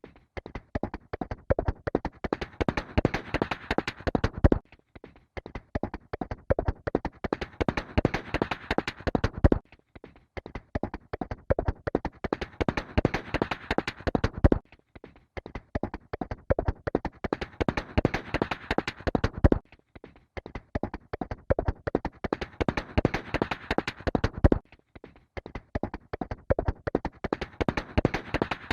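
Horse hooves galloping in a dense run of hoofbeats, a segment about five seconds long that cuts off briefly and starts again, over and over, as a repeating loop.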